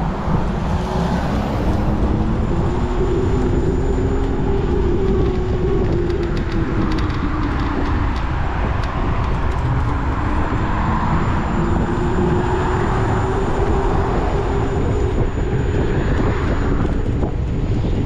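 A vehicle's motor humming on the move, its pitch slowly rising and falling with speed, under a heavy rumble of wind on the microphone.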